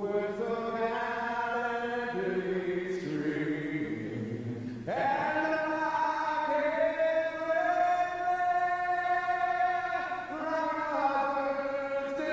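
Slow vocal music with several voices holding long, steady notes together and moving to a new chord every second or two. A louder chord comes in sharply about five seconds in.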